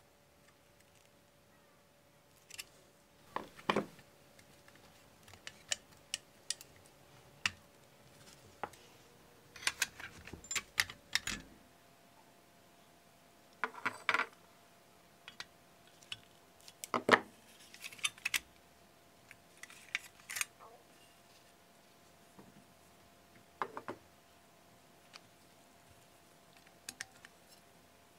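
Pliers working the tabs of a rusty pressed-steel toy truck body as it is taken apart, with irregular sharp metallic clicks and clanks as the steel parts are gripped, bent and handled. A faint steady hum sits underneath.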